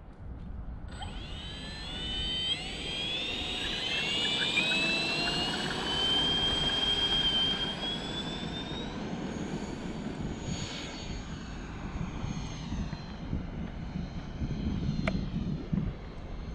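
Freewing A-4 Skyhawk's 80 mm electric ducted fan spooling up to full throttle for the takeoff roll. It starts as a high whine about a second in and rises in pitch over the next few seconds, then holds steady with a further rise a few seconds later. A steady low noise runs under the whine, and there is a single sharp tick near the end.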